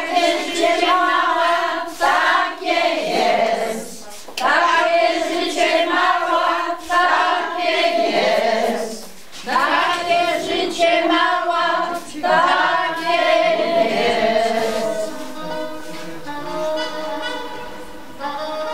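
A group of older women singing together in sung phrases a few seconds long, with short breaks between them. Near the end, instrumental music takes over.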